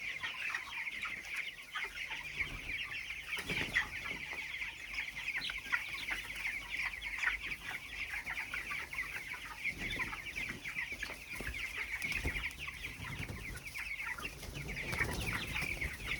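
A large flock of broiler chickens calling continuously: many overlapping high chirps and clucks, with no pause.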